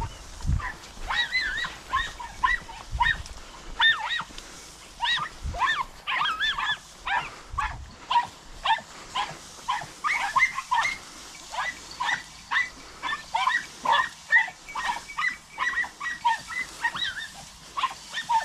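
Podenco hounds giving tongue while hunting rabbits: a long run of short, high-pitched yelping barks, a few a second, sometimes overlapping.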